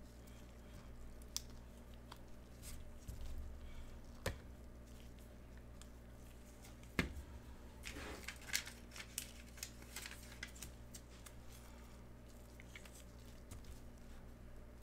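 Trading card packs and cards being handled: a few sharp taps and clicks, then a short crinkling tear about eight seconds in as a pack wrapper is torn open, followed by light ticks of cards being shuffled.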